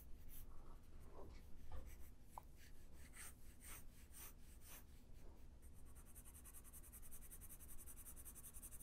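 Faint scratching of a Prismacolor coloured pencil shading on paper: a quick run of short strokes in the first half, sparser after.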